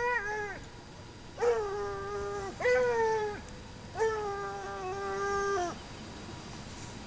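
Ariégeois hound baying: long, drawn-out bays at a steady pitch, each sliding down as it ends, about four in a row. The hound is giving tongue while trailing a hare.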